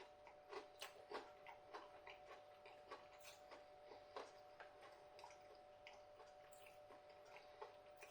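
Faint, irregular crunching of a crispy breadcrumb-coated prawn being bitten and chewed, loudest around the first second and thinning out after.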